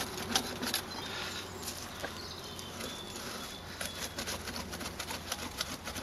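Hand-turned T-handle earth auger being twisted into wet, waterlogged soil, giving a run of irregular clicks and crackles as it cuts.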